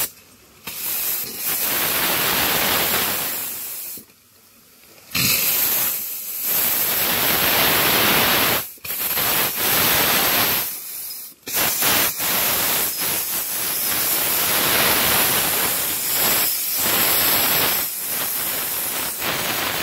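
Loud steam hiss from a miniature steam locomotive, steam blowing out at the cylinders as it sets off. It comes in long blasts, broken by a pause of about a second some four seconds in and by brief dips near nine and eleven seconds.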